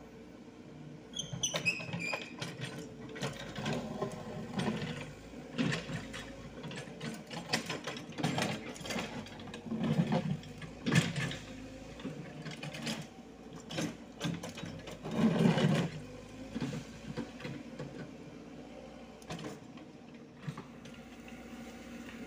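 Komatsu PC78US mini excavator working earth: engine running steadily under irregular clanks and knocks from the bucket and tracks, with a few louder surges near the middle and about two-thirds through.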